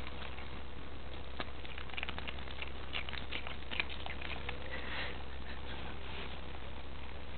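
A cat chewing plastic, its teeth on the plastic making irregular crinkly clicks and crackles, thickest in the first few seconds.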